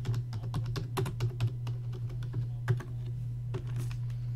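Typing on a computer keyboard: a quick, uneven run of key clicks that thins out after about three seconds, over a steady low electrical hum.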